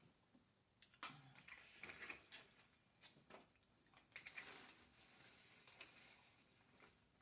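Faint clicks, crunches and crackles of seafood-boil eating and food handling, a few sharp ticks scattered through, with a soft rustle in the second half.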